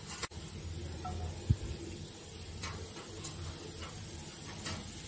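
Chopped onion going into hot oil in a nonstick frying pan: one soft thud about a second and a half in, then a faint, steady sizzle with a few small ticks and pops.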